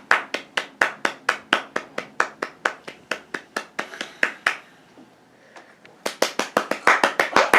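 Hands clapping in a fast, steady rhythm of about six claps a second. The clapping pauses about four and a half seconds in and starts again about a second and a half later.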